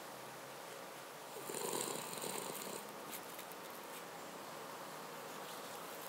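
Cavalier King Charles Spaniel snoring softly, with one louder snoring breath about a second and a half in.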